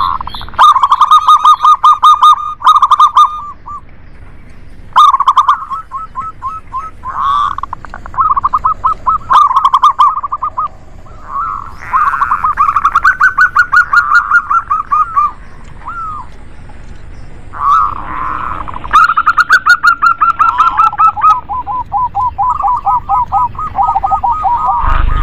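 Zebra doves (local perkutut), male and female, cooing: bouts of rapid, staccato pulsed notes repeated over and over. Near the end two birds call at once, one higher-pitched and one lower.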